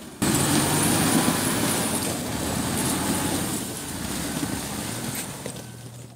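Heavy truck engine running under load as it drives over ice: a steady low hum under a broad rumble, fading out near the end.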